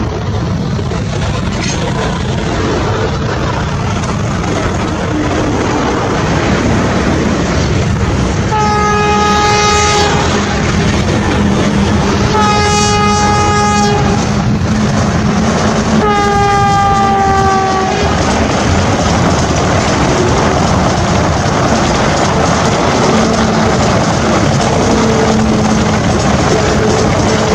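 Train horn sounding three long blasts, each about one and a half to two seconds and a few seconds apart, the last one dropping slightly in pitch, over the steady running noise of a passing train.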